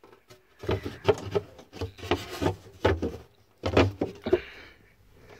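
Irregular dull knocks and rubbing, handling noise of someone shifting about on upholstered cushions and wooden fittings inside a small boat cabin; the noises come in clusters and die away near the end.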